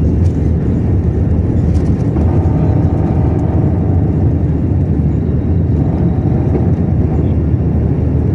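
Airbus A320 jet engines running during a night takeoff: a loud, steady low rumble.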